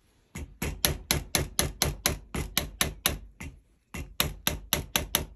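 Rubber mallet tapping a small steel pin punch in quick, even strokes, about five a second, driving a barrel pin out of a muzzleloading long rifle's wooden stock. The tapping stops briefly about three and a half seconds in, then starts again.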